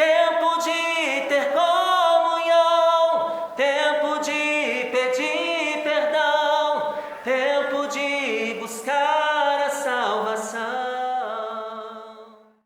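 Unaccompanied singing voice closing a gospel song with long held notes that glide from one pitch to the next, fading out near the end.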